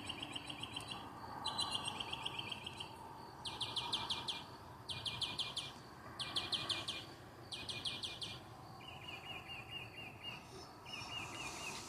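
A bird singing at night: a string of separate phrases about a second long, each a quick run of the same high note repeated many times, switching to a new phrase type every one or two phrases.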